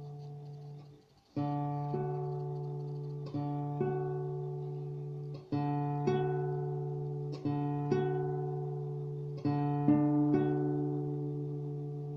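Acoustic guitar played slowly: a chord struck about every two seconds and left to ring out and fade, with a further note picked soon after each, over a low note that rings on. The playing pauses briefly about a second in.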